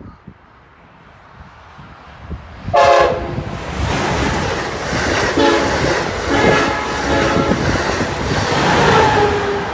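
Amtrak passenger train rushing past at speed, its horn sounded in several blasts, the first and loudest about three seconds in, over the rising roar of wheels on rail.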